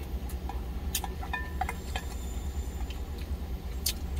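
Wooden chopsticks tinking lightly against a stainless steel lunch tin, with a few short clicks, over a steady low hum in the truck cab.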